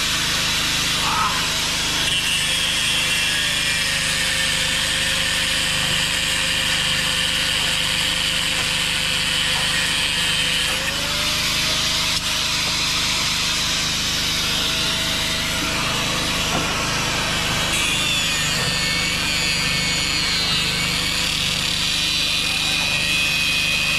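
Handheld electric angle grinder running continuously with its disc grinding against a boulder, a loud steady scraping hiss. The motor's pitch rises and falls as the load on the disc changes.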